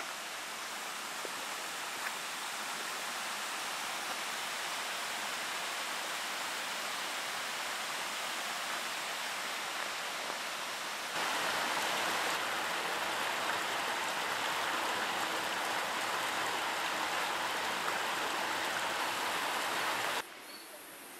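Steady rushing of a flowing stream, louder from about halfway through, cutting off abruptly to a much quieter background near the end.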